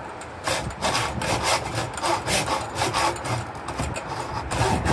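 Hand hacksaw cutting through a clamped piece of metal, in quick, regular back-and-forth strokes that start about half a second in.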